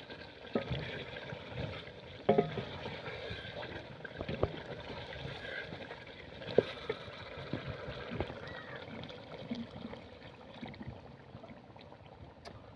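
A ladle stirring a thick chicken and potato curry in an aluminium pot, knocking against the pot every second or two.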